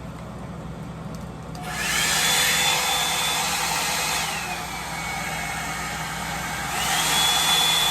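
Revlon One Step Volumizer hot-air brush running and being switched between settings. A quieter steady rush of air for about the first second and a half, then the motor speeds up with a rising whine, drops to a lower whine about four seconds in, and rises again near the end. At the highest setting it has a little bit of a high-pitched squeal.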